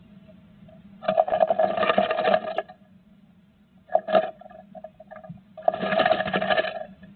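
Great tit scrabbling and fluttering inside a wooden nest box: claws scratching on the wood and nesting moss rustling, in three bursts. The first burst comes about a second in and lasts over a second, a short one follows near four seconds, and the last, near six seconds, comes with the wings beating. A steady low hum runs underneath.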